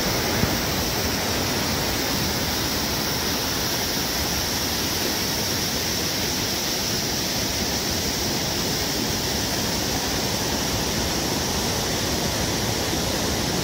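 Waterfall and whitewater rapids rushing in a rocky canyon: a loud, steady, even noise that does not change.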